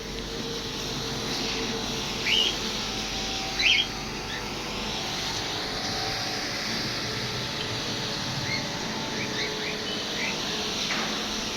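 Small birds chirping, with two louder chirps in the first four seconds and fainter ones later, over a steady hiss.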